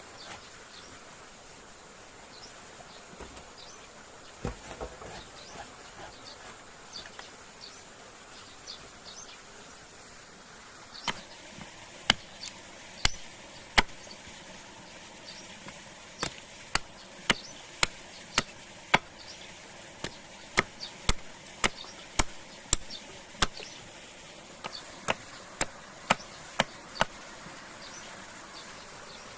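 Steady forest background with faint chirps, then from about eleven seconds in a long, uneven run of sharp, loud knocks, one or two a second, like a tool chopping or hammering wood at a campsite.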